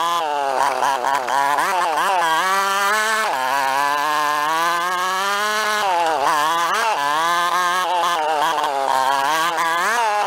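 Small single-cylinder four-stroke engine of an old Honda 50 Mini Trail monkey bike being ridden, its buzzy note rising and falling with the throttle every second or so, with a longer steadier pull in the middle.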